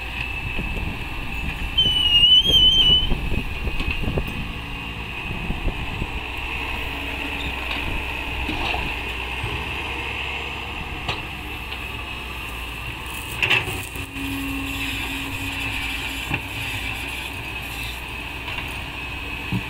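Komatsu PC excavator's diesel engine running steadily with a low rumble. A short wavering whistle comes about two seconds in, and a sharp knock comes about halfway through.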